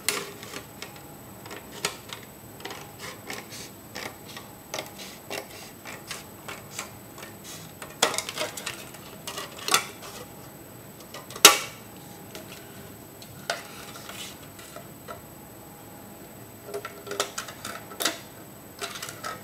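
Scissors snipping through a thin white plastic tray, with the stiff plastic clicking and crackling as it is cut and handled. The snaps come at irregular intervals, and the sharpest one is a little past halfway.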